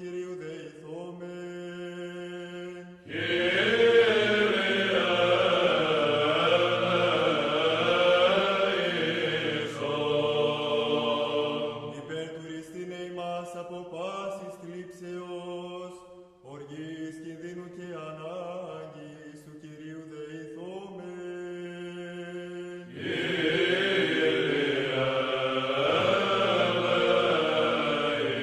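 Greek Orthodox Byzantine chant: a voice chanting over a steady low held drone, with louder, fuller chanting for several seconds about three seconds in and again near the end.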